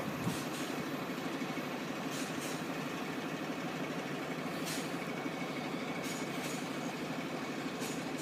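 Steady low diesel rumble of a Class 175 diesel multiple unit moving away past the crossing, with a few faint clicks.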